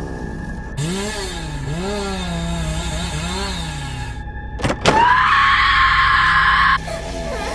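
Eerie music, then about five seconds in two sharp knocks and a loud chainsaw rev that rises in pitch, holds for about two seconds and cuts off abruptly.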